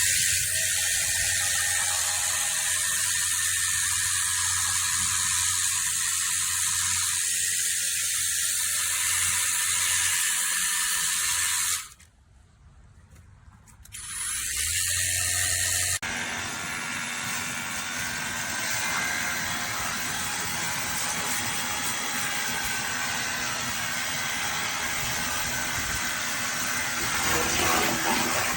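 SLENJADFIN cordless handheld pressure washer running, its pump humming under a steady hissing spray, on its highest setting with pressure the owner calls "nothing". The spray stops for about two seconds around twelve seconds in, then resumes. A few seconds later it changes to a broader, rougher rush of water.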